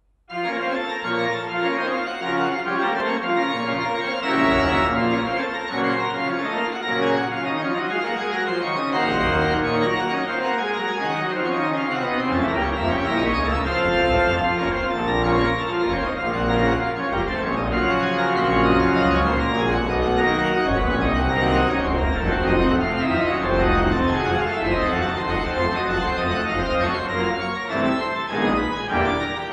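A toccata played on a Johannus digital church organ, starting abruptly. Fast runs sound in the upper and middle range. The deep pedal bass comes in about twelve seconds in, and full organ holds from then on.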